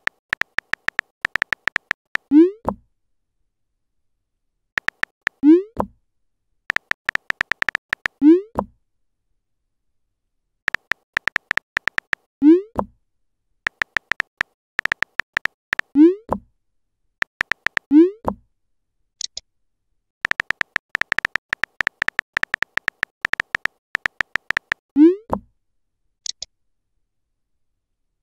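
Phone keyboard typing sound effects, runs of quick clicks, each run ending in a short rising 'bloop' as a text message is sent, about seven times. Twice, a brief high chirp.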